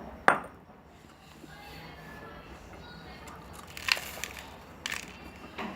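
Dry cream cracker biscuits being bitten and crunched: a few sharp cracks, the loudest just after the start and three more in the last two seconds.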